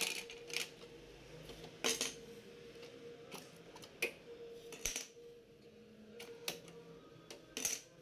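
Desktop RAM modules being pulled from their motherboard slots and laid down on a hard bench: a string of faint, separate clicks and light clatters, about eight in all.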